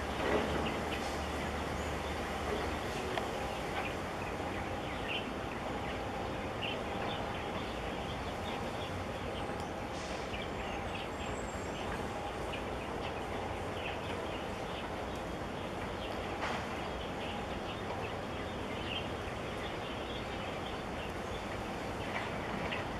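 Steady open-air waterside ambience: a low rumble and a faint steady hum, with scattered short high chirps throughout.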